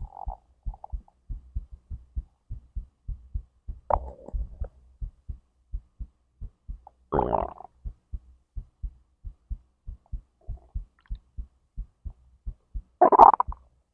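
A person's heartbeat and digestive gurgling heard through the belly. The heartbeat runs as an even row of low thumps throughout, while the stomach and intestines gurgle and rumble in three stretches: a short one a few seconds in, a longer one about halfway through, and the loudest near the end.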